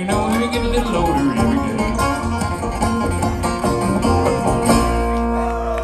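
Live acoustic bluegrass band playing an instrumental passage: banjo, mandolins and acoustic guitar picking over upright bass, settling onto a held chord near the end.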